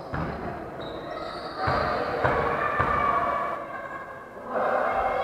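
A basketball bouncing on a wooden gym floor, three bounces about half a second apart, like a dribble before a free throw. Echoing hall noise with a few high squeaks is heard around it.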